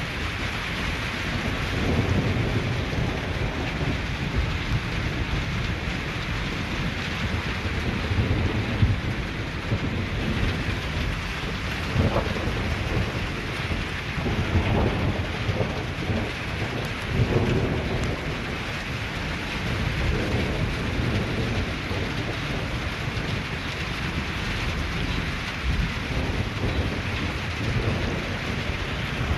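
Steady rain falling, with low rolls of thunder rumbling through it again and again.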